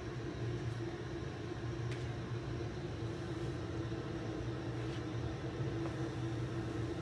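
A steady low two-tone hum throughout, with a few faint soft clicks and rustles as salad greens are tossed with a utensil in a plastic bowl.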